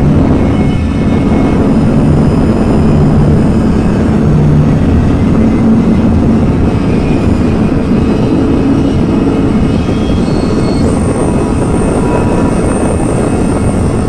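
Loud, dense electronic noise music: a thick low droning rumble with a haze of noise above it. Thin high whistling tones come in about two-thirds of the way through.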